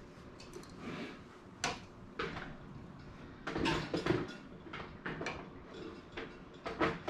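Scattered knocks, clunks and rattles from a multi-level wire chinchilla cage as a small hideout house is set back inside it, with a tight cluster of knocks about halfway through.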